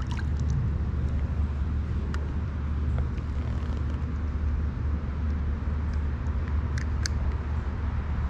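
Steady low rumble, with a few faint short clicks scattered through it.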